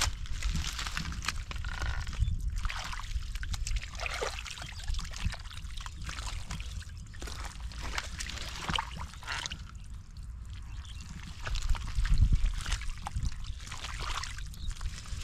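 Hands groping through shallow muddy water, sloshing and splashing in an irregular run of small splashes and squelches.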